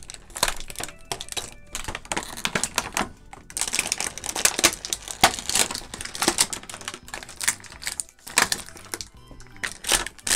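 Clear plastic packaging crinkling and crackling, with many sharp clicks, as small toy accessories are popped out of it by hand.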